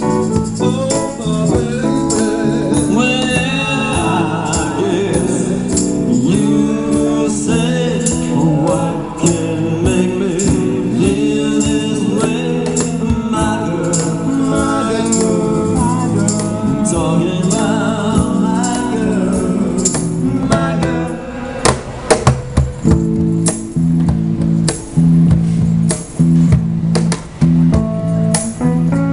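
A live soul band playing: singing over electric keyboard, electric bass and a cajon, with a tambourine shaken along. In the last third the singing thins out and the band plays sharp accented hits with brief gaps between them.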